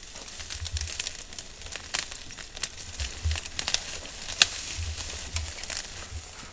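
African elephant feeding at close range: dry grass, leaves and twigs crackle and rustle with many sharp snaps as it pulls at the brush, the loudest snap about four and a half seconds in.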